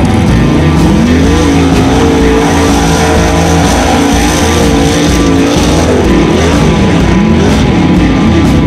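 Rock music over the engine of a mud-racing 4x4 skimmer, revving up and down repeatedly as it powers through the mud.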